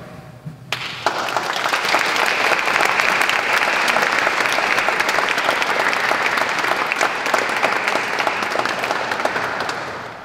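Audience applauding. The applause starts about a second in, holds steady, and dies away near the end.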